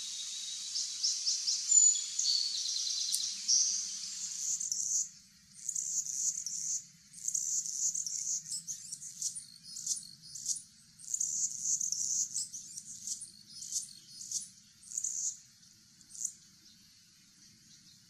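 A song sparrow's notes and trill over a steady high hiss for the first few seconds. Then a male Anna's hummingbird sings its scratchy, buzzy song, a long run of short high phrases with brief gaps, which stops a couple of seconds before the end.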